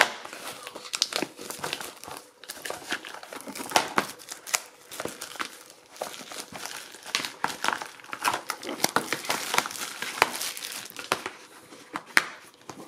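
Plastic shrink wrap being torn and peeled off a Blu-ray case, with continuous irregular crinkling and crackling and a louder sharp click near the end.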